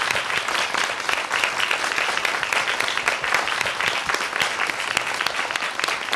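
Studio audience applauding: many hands clapping steadily.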